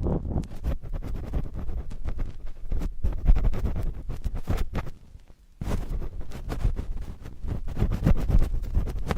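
Cotton swab scratching and rubbing directly on a microphone, close up, in quick repeated scratchy strokes with a short pause about five seconds in.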